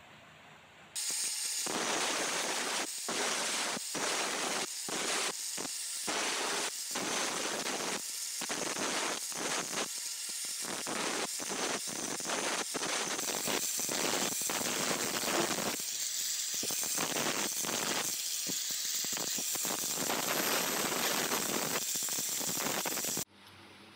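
Angle grinder with a cutting disc cutting through steel, a harsh steady hiss broken by many brief gaps as the disc comes off the work. It starts suddenly about a second in and cuts off abruptly near the end.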